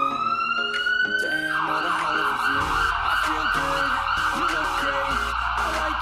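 Edited-in background music that opens with a siren-like tone rising over a second or two and then holding as a steady wavering high note, over a shifting melody. A deep bass comes in about two and a half seconds in and grows stronger near the end.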